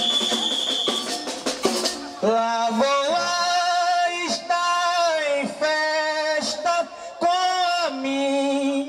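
Maracatu percussion playing with a shrill whistle blast held for about a second, then the drums and rattles stop about two seconds in and a man sings a verse alone in long, held notes.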